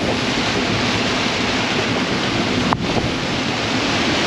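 Steady rush of a squall's wind at about 31 knots apparent, buffeting the microphone, mixed with the wash of the sea past the sailing catamaran.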